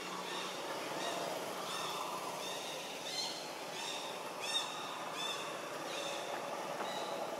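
A bird calling over and over with short, high, arched chirps, roughly one to two a second, over a steady outdoor background hiss.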